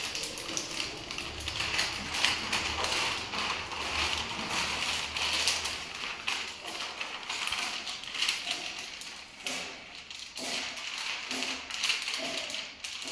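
Protective paper masking sheet being peeled off the face of an acrylic photo frame and handled, rustling and crinkling with many small crackles as it lifts away from the surface.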